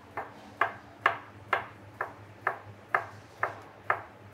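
Chef's knife cutting through a zucchini and knocking on an end-grain wooden cutting board with each slice, in an even rhythm of about two cuts a second, nine in all.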